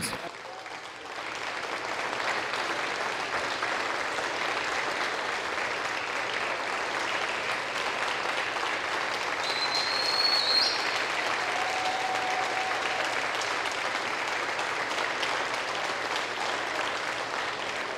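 A roomful of people applauding. The clapping builds up within the first second or two, then goes on steadily.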